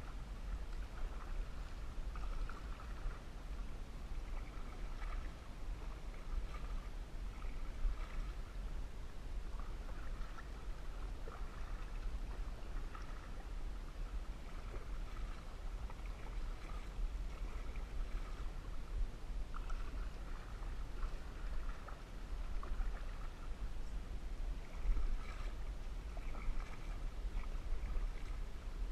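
Canoe being paddled: water splashing and dripping with each paddle stroke, roughly every second or two, over a steady low rumble.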